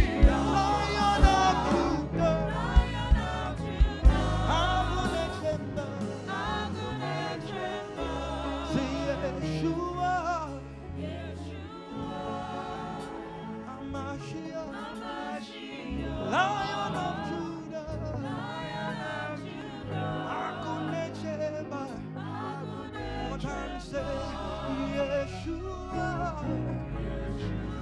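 Gospel worship music: a choir singing over bass and band, with strong drum hits in the first few seconds before it settles into a softer sung passage.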